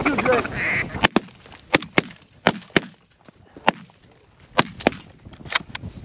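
Geese honking: a dense burst of calls at the start, then a string of short, sharp honks and clucks, some in quick pairs.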